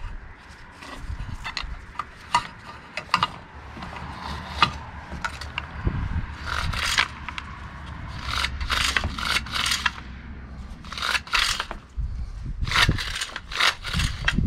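A Homelite Super 2 chainsaw's plastic recoil starter housing is handled while its starter cord is pulled through and adjusted. The result is a run of short scraping and rubbing strokes, busier in the second half.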